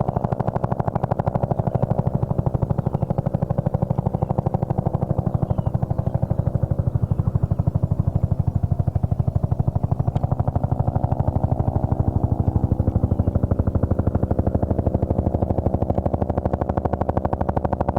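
Bell UH-1 Huey helicopter running, its two-blade main rotor beating in a fast, even rhythm over the steady hum of its turbine engine.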